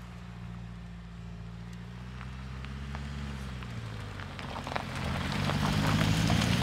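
Mercedes C-Class All-Terrain C220d's 2-litre four-cylinder diesel driving by on a dirt trail, its engine note steady and growing louder as the car comes close. In the second half the tyres crunch over gravel and dirt, loudest as the car passes.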